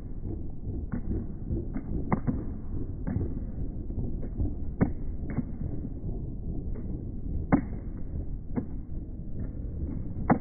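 Slowed-down outdoor street sound: a deep, murky rumble with irregular dull clicks and taps, roughly one a second.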